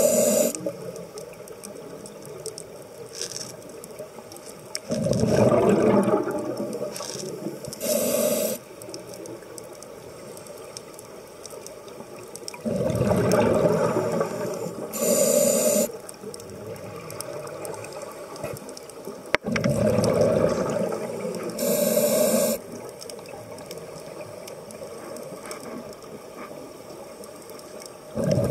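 A scuba diver breathing through a regulator underwater, about every seven seconds. Each breath is a rush of exhaled bubbles lasting a couple of seconds, followed a moment later by a short hissing inhale, with a low steady background between breaths.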